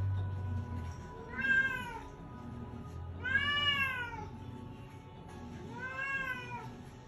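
Domestic cat meowing three times, each meow rising then falling in pitch, the middle one the longest.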